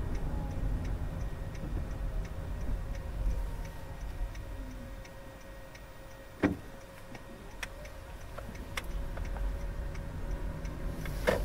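Car's turn-signal indicator ticking steadily, about three clicks a second, over low engine and road rumble. Two sharp knocks stand out, about six and a half and eleven seconds in.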